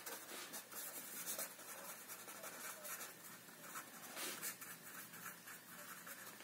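Ballpoint pen writing on paper: faint, irregular scratching strokes of handwriting as a line of words is written.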